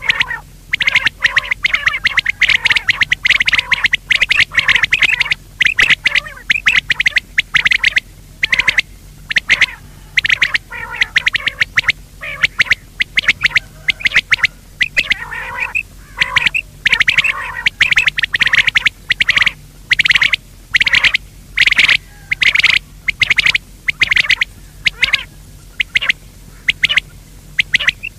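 Recorded quail calls of the kind played to lure quail into nets: group after group of rapid, short, high-pitched notes with brief pauses between them, over a faint steady low hum.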